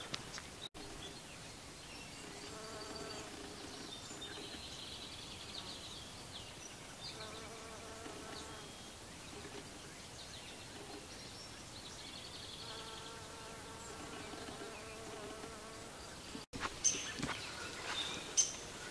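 A small flying insect buzzing around a flower, a thin hum that comes and goes in several passes of a few seconds each. Near the end come louder footfalls on the trail.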